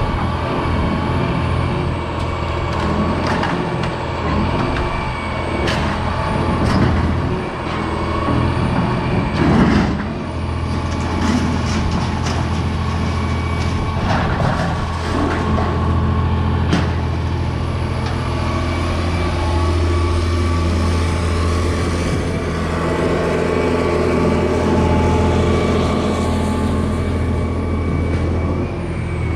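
A John Deere 350 excavator's diesel engine running steadily, with scattered knocks and cracks; the loudest comes about ten seconds in.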